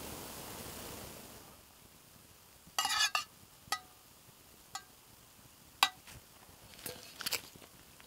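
Metal spoon clinking against a steel cup, a handful of sharp ringing clinks: a quick cluster about three seconds in, then single clinks spaced a second or so apart.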